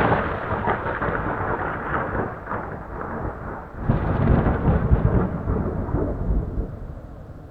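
Rolling thunder with rain: one long rumble, a second roll building about four seconds in, then dying away.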